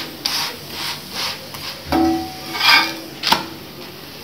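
A steel slotted skimmer scraping and tapping on an oiled cast-iron tawa as a chapati is pressed and turned: a string of short scrapes, with a sharp metal click about three seconds in.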